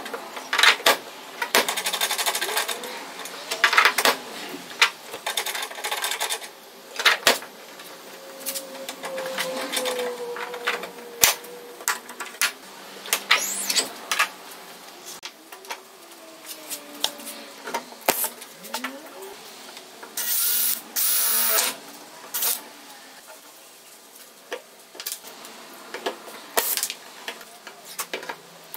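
Workshop handling noise: irregular clicks, taps and knocks of small parts and tools being fitted to a car bonnet. About two-thirds through, a pneumatic air tool on an air line runs in two short bursts.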